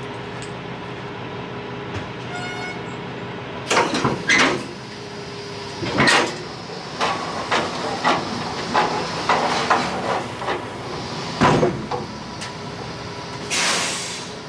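Semi truck's engine running steadily, with several loud clanks and a run of smaller knocks, and a short hiss near the end.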